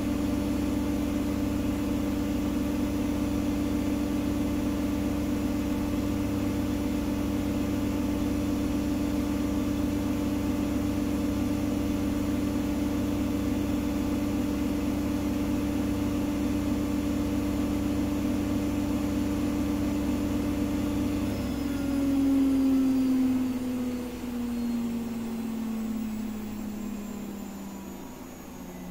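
Gorenje SensoCare WAE74 front-loading washing machine spinning at full speed with a steady hum, its motor running quietly on freshly replaced bearings, the worn-out drain pump being the noisiest part. About 21 seconds in the drive cuts and the hum falls steadily in pitch as the drum coasts down from the spin.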